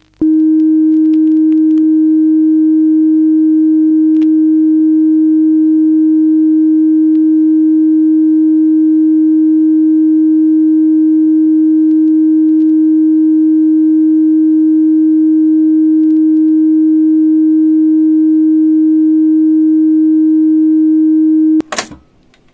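A steady 315 Hz reference tone at the nominal 250 nWb/m recording level, played back from a measurement test cassette on a Mayak-233 cassette deck for calibrating gain and level meters. The tone holds unchanged and cuts off abruptly near the end.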